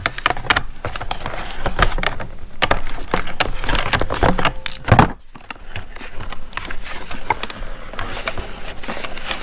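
Clicking, rattling handling noise of ratchet straps and their packaging being worked free by hand, with a sharper knock about five seconds in.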